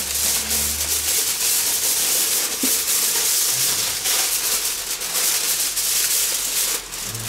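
Aluminium foil being crinkled and peeled off a bowl: a continuous dense crackling.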